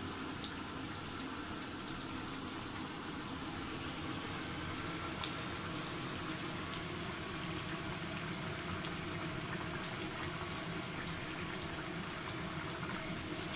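Chicken curry boiling hard in an open pan over a high gas flame: a steady bubbling with small pops.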